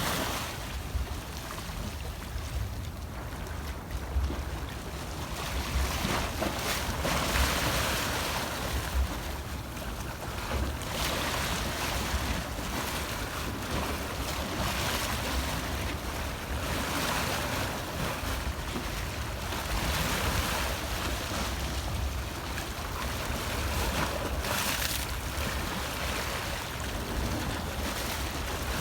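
Ocean waves breaking and washing ashore, with a surge every few seconds. Wind rumbles on the microphone underneath.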